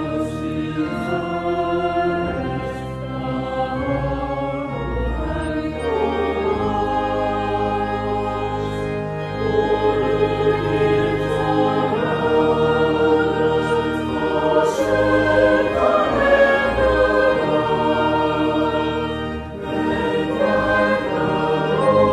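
Choir singing with organ accompaniment.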